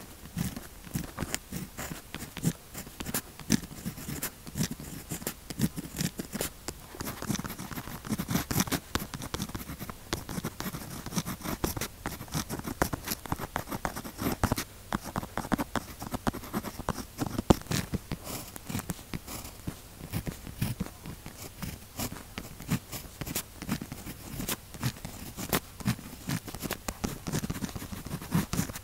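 Pen tip writing on paper with Zebra pens: a continuous run of short scratching strokes and ticks as letters are written.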